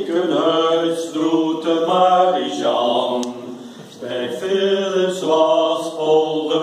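A small group of men and women singing a song together from song sheets, with a short break between two lines a little past halfway.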